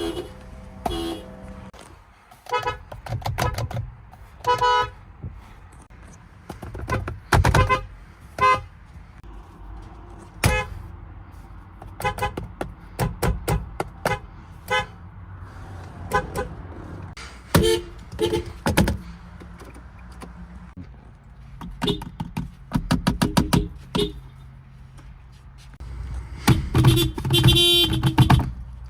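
Car horns of many different cars sounding one after another: short single toots and quick strings of beeps, over a low steady hum. The longest and loudest honk comes near the end.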